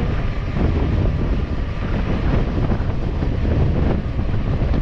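Wind buffeting the microphone of a camera worn by a cyclist riding a mountain bike along a paved road: a steady low rumble.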